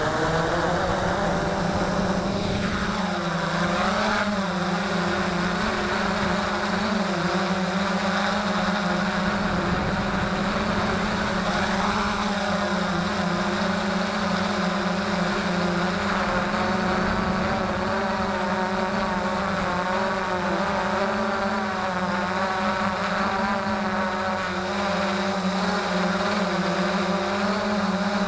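Electric motors and propellers of a Freex Skyview quadcopter, heard up close from its own onboard camera. They run with a steady whine whose pitch wavers slightly as the drone sits on the ground and then lifts off.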